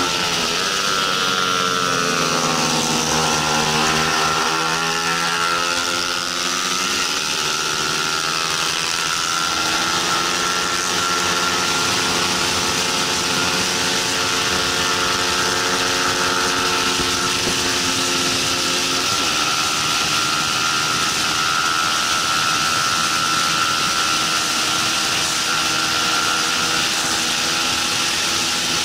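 Bajaj Pulsar 200 NS single-cylinder engine at high revs on a race track, heard from the bike with loud wind rush. The revs fall and climb again through the first several seconds through a corner, then hold high and steady, with brief breaks in the note about seven and nineteen seconds in.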